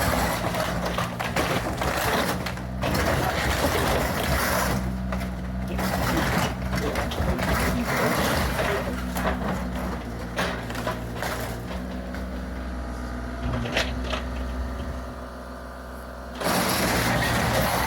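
Bobcat excavator's diesel engine running steadily under repeated clattering, knocking and crunching of debris. The clatter thins out for a few seconds near the end, leaving mostly the engine hum, then comes back loudly.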